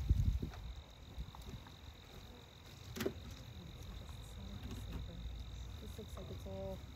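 Beehive frames being handled: a dull thump at the start and a single sharp knock about three seconds in, over a steady high-pitched tone and a low background hum.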